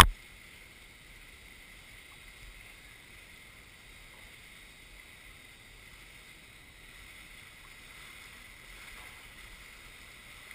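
A splash of water against the camera right at the start, then a faint steady hiss of pool water with the camera sitting at the surface.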